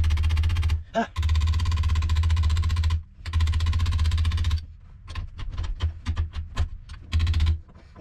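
Hammer driving a brass shifter bushing into its housing: long runs of rapid, even blows with short pauses between, then a string of separate, lighter taps over the last few seconds; the bushing is a stiff fit.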